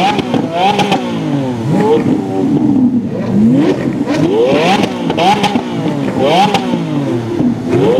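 Car engines revving in quick repeated blips, the pitch rising and falling several times, with more than one rev at times overlapping.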